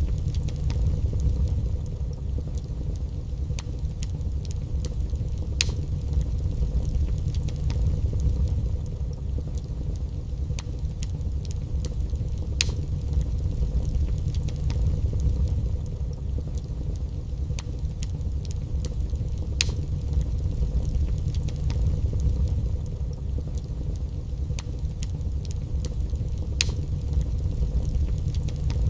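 Wood fire burning in a fireplace: a steady low rumble with sharp crackling pops at irregular moments, roughly one every second or two.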